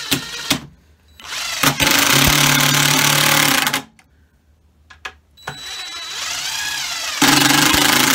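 Cordless impact driver driving two long wood screws into a wooden hive box, each run lasting about two seconds. The second starts as a quieter whir and gets much louder near the end as the screw seats, after a few short trigger blips at the start.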